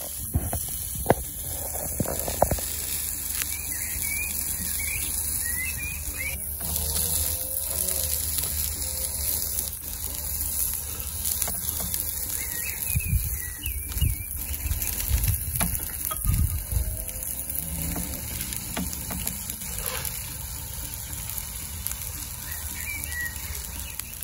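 Chicken tikka skewers and sliced onions sizzling on a charcoal barbecue grill, a steady hiss. Birds chirp briefly now and then in the background, and there are a few low rumbles.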